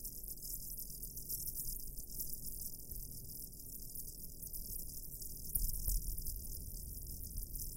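Experimental tape-noise music: a steady crackling high hiss over a low rumble, with a couple of faint clicks and the rumble growing louder about five and a half seconds in.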